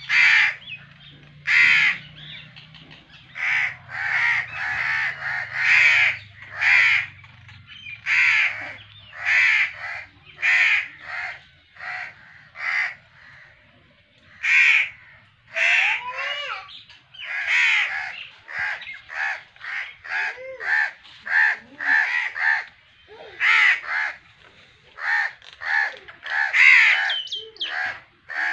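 Crows cawing over and over, call after call with hardly a break, sometimes overlapping as if several birds.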